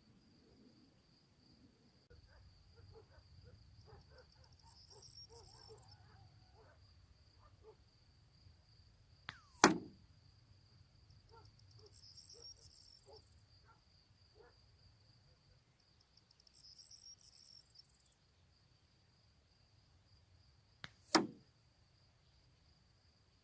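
Two sharp shots from a Hatsan air rifle, about eleven and a half seconds apart, each with a faint click just before it. Crickets chirp steadily in the background.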